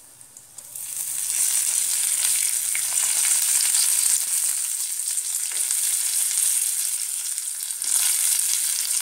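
Curry leaves sizzling and spluttering in hot oil with cumin and mustard seeds in a non-stick frying pan. The sizzle flares up within the first second as the leaves hit the oil, then keeps going as a loud, steady hiss with fine crackles.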